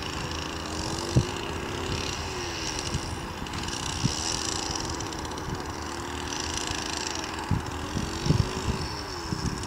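Lure-coursing machine's motor running, rising and falling in pitch several times as it speeds up and slows, with a few short knocks.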